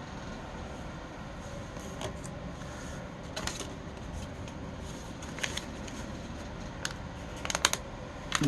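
Small plastic parts being handled: scattered light clicks and crinkles, a few close together near the end, over a steady low hum.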